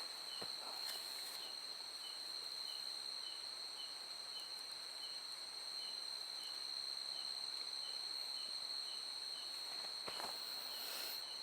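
Night insect chorus: a steady high-pitched trill from crickets, with another insect chirping softly two or three times a second.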